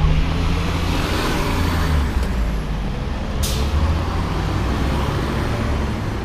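City bus engine running with a steady low rumble, with a brief air-brake hiss about three and a half seconds in.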